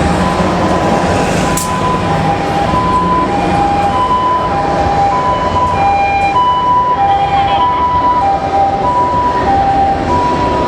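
Japanese ambulance two-tone 'pee-poh' siren, alternating a high and a low note about every half second, over loud, steady city traffic noise.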